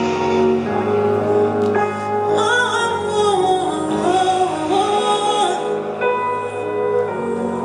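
Slow, soft music of sustained chords, with a singing voice coming in about two and a half seconds in. The voice holds wavering notes until about five and a half seconds in.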